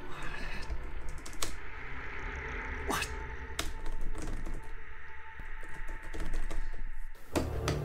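Typing on a computer keyboard: irregular key clicks with a few louder keystrokes, over a faint steady low hum.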